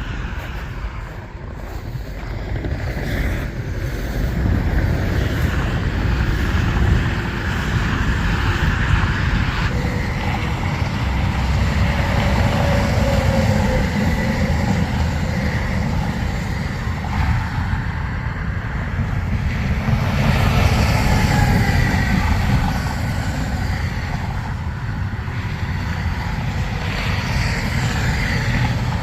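Semi truck running down the highway: a steady low engine and road rumble with faint drifting tones above it, getting a little louder over the first few seconds and then holding even.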